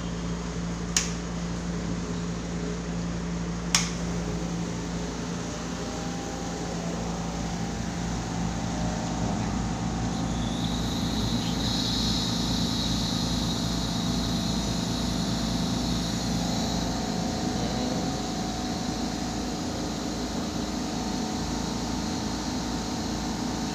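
KJ-BII oilless air compressor running with a steady hum. Two sharp switch clicks come about a second and about four seconds in, and a higher hiss joins about ten seconds in.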